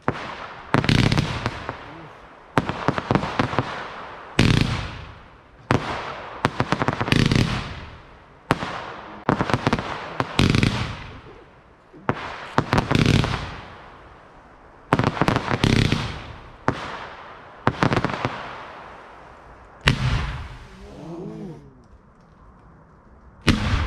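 Fireworks going off in a steady run of loud bangs about every one to two seconds, some in quick pairs, each followed by a fading crackle. Near the end there is a short lull, then one more bang.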